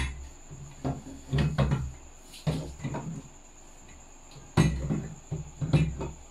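Irregular knocks, clunks and low hollow thuds as a metal punching-bag pole with a spring collar is fitted and turned in the top of a hollow plastic base. The loudest knock comes about two thirds of the way through.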